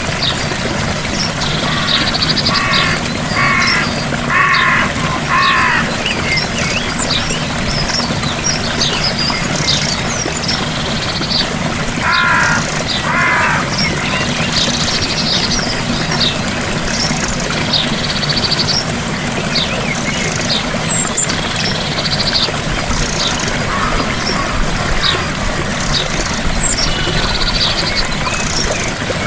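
Steady rushing of a small waterfall with birds singing and chirping over it throughout. Twice, a run of harsher repeated calls stands out: four near the start and two about twelve seconds in.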